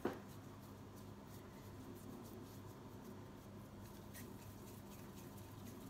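Faint soft rubbing of hands rolling a ball of soft dough between the palms, over a low steady hum. A single sharp click comes right at the start.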